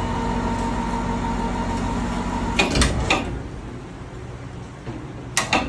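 Electric chain/cable hoist of a gantry lift running with a steady hum as it moves a crawfish basket. It stops about two and a half seconds in with a few metal clanks, and two more clanks come near the end.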